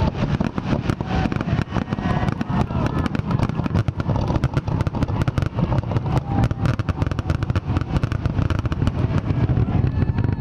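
Fireworks finale: a dense, continuous barrage of rapid bangs and crackles over a deep rumble, with a few faint whistles gliding through it.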